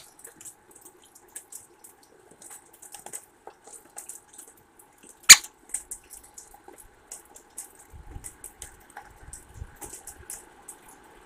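Raindrops dripping, making small irregular ticks close to the microphone, with one sharp, loud knock about five seconds in.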